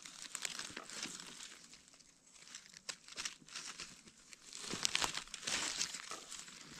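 Dry leaves and twigs crackling and rustling as gloved hands dig young egg-stage Amanita mushrooms out of the leaf litter, in clusters of small crackles with short quiet gaps.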